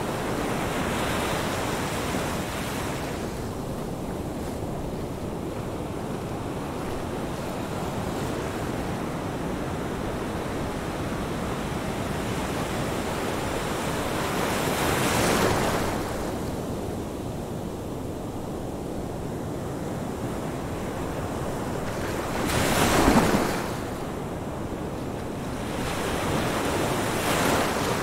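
Ocean surf: a steady wash of waves with a few louder surges as waves break, the strongest about two-thirds of the way through.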